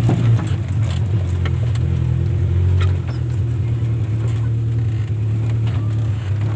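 Off-road vehicle engine running steadily at a low, even pitch, with scattered short knocks and rattles over it.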